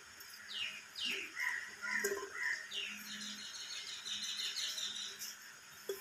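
Parakeet giving soft chirps and several short, falling squeaks, with a few sharp clicks in between.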